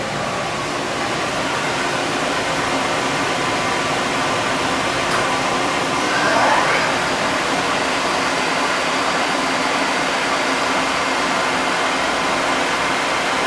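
Cincinnati CNC machining center running with a steady whir, its spindle turning a tool. A faint rising whine comes in about six seconds in.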